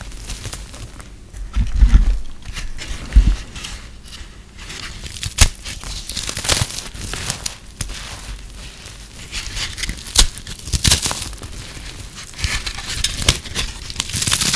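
Hands crushing and breaking microwave-puffed soap: dry, brittle crunching and crackling in irregular bursts, with a couple of dull thumps about two and three seconds in.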